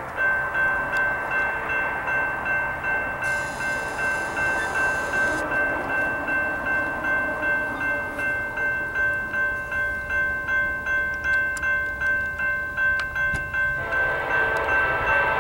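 Level-crossing bell ringing steadily at about two strikes a second as a coal train approaches. About a second and a half before the end, the locomotive's air horn joins in, louder, for the crossing.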